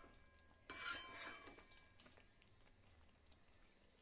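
A spatula stirring chicken pieces through thick masala in a metal kadhai, mixing in the salt: one short burst of wet scraping about a second in, lasting about a second, then only faint stirring.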